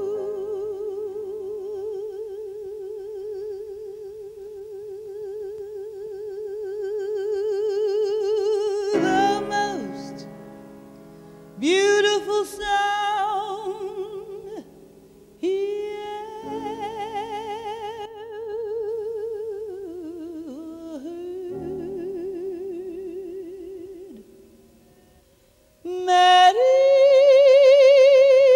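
Female jazz singer's voice, with piano accompaniment, singing a ballad live. She holds one long note with wide vibrato for about nine seconds, sings several shorter phrases, and near the end rises to a loud, high held note.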